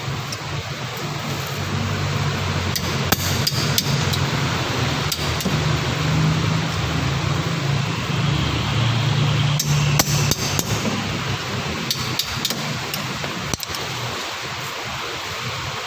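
Scattered sharp metal knocks and clinks of hand tools on the brake parts while the pads are changed, about a dozen irregular strikes, over a steady low hum.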